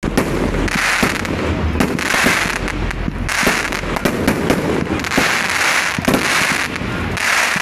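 Aerial fireworks display: a rapid series of bangs from launching and bursting shells, with short rushes of hiss about once a second.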